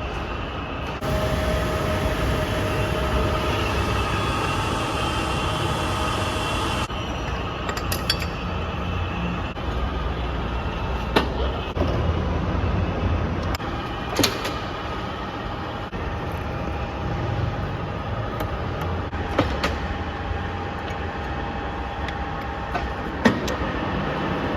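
Ooya RE-1600 radial arm drill running, a steady mechanical hum with gear whine whose pitch changes partway through. Several sharp clicks and knocks are heard from its levers and gearing.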